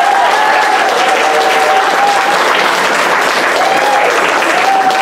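Audience applauding at the end of a song, with long high-pitched vocal calls from the crowd held over the clapping.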